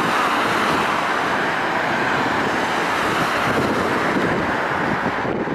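Jet engine noise from a Boeing 787-8 Dreamliner touching down and rolling out on the runway: a steady, loud rush that eases a little near the end.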